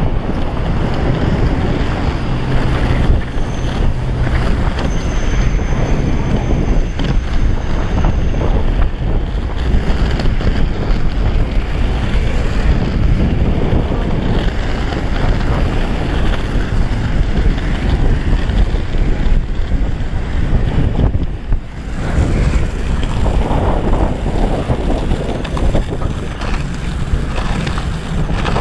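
Wind rushing over the action camera's microphone during a fast downhill skateboard ride, over the rumble of the cruiser board's wheels rolling on asphalt. The noise is loud and steady, with a brief drop about three-quarters of the way through.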